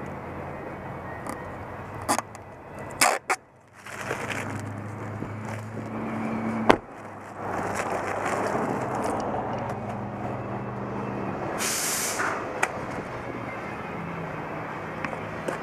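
A motor vehicle's engine running steadily, with a few sharp clicks and a short burst of hiss about twelve seconds in.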